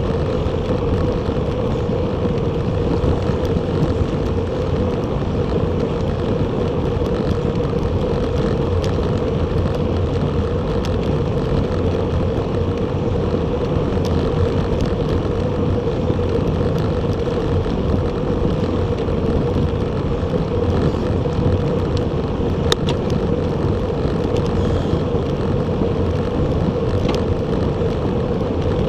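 Steady wind and road noise from a Bacchetta Corsa recumbent bicycle being ridden, with a couple of faint ticks in the later part.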